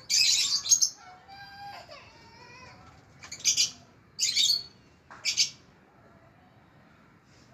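Red-vented bulbul giving harsh, rasping alarm calls in four short bursts, scolding a cat below its tree. A fainter pitched call slides down in pitch between the first two bursts.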